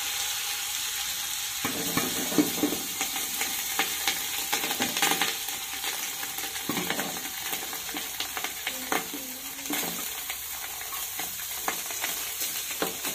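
Food sizzling as it fries in a pan, stirred with a spoon that scrapes and clinks against the pan in short, irregular knocks.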